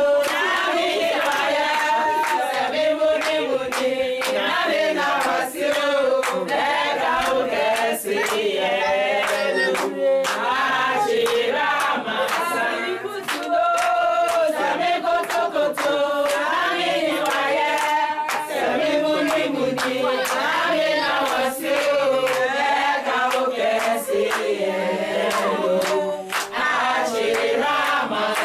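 A group of men and women singing together, accompanied by steady hand-clapping.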